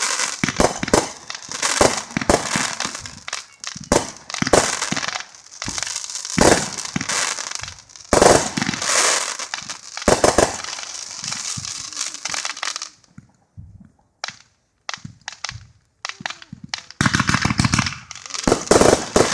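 Consumer fireworks going off: rapid bangs and dense crackling. They fall quiet about thirteen seconds in, with only scattered pops, then start up again about four seconds later.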